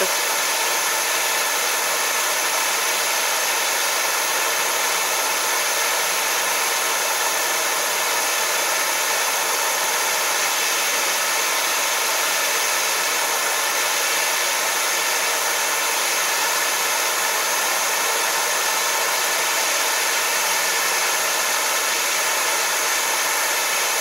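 Gas torch flame burning with a steady hiss, held on a case-hardened steel padlock shackle to heat it toward a red glow for annealing.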